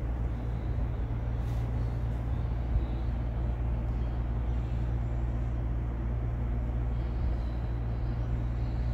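Steady low hum with an even rushing noise above it, unchanging, with no distinct clicks or knocks.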